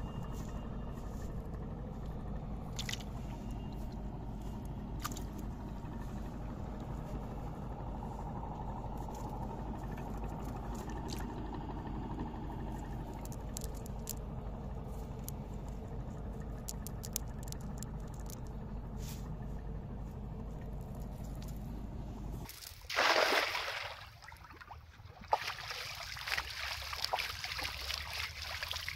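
A steady low rumble with faint scattered clicks and rustles while a wet fishing net is picked over by hand. It cuts off abruptly a little over 20 seconds in, followed by a loud splash and then sloshing, trickling water as a man stands in shallow water hauling in a net line.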